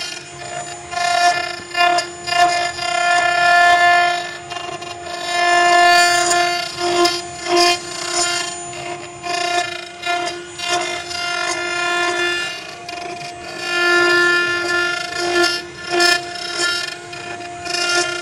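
CNC engraving machine's spindle and cutter milling an aluminum profile: a loud, high-pitched whine held at one pitch, swelling and fading repeatedly as the cut bites and eases.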